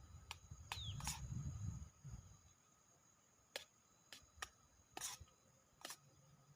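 About eight sharp, separate clicks or snaps at irregular intervals over a faint steady insect chirring, with a low rumble of wind in the first two seconds.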